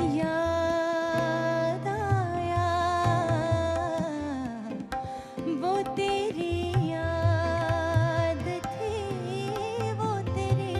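Ghazal music: tabla drumming under a sustained, gliding melody line.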